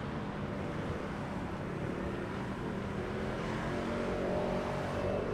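City street traffic: motor vehicles running and passing as a steady low rumble that swells slightly near the end.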